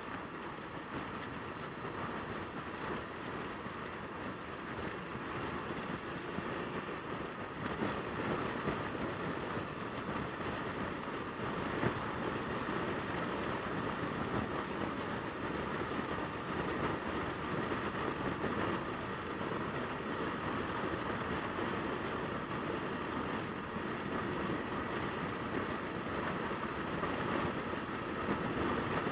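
Yamaha YZF600R Thundercat's inline-four engine running at steady highway speed, with wind rushing over the microphone.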